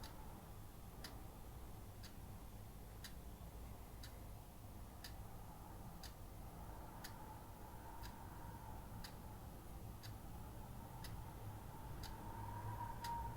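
A clock ticking faintly, about once a second, over a low rumble and a thin wavering whistle that swells near the end.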